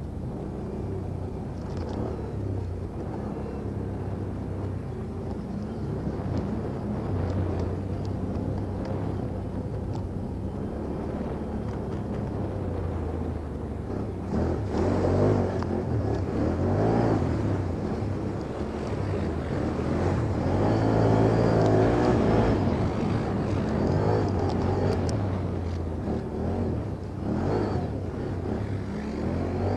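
ATV engine running and revving under load, its pitch rising and falling again and again, loudest about halfway through as it climbs through the throttle.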